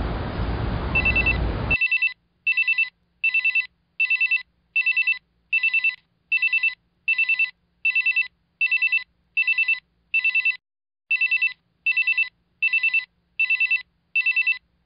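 Electronic desk telephone ringing in short, high-pitched trills, about two a second, with one brief pause late on. It begins under a steady noise that cuts off abruptly about two seconds in.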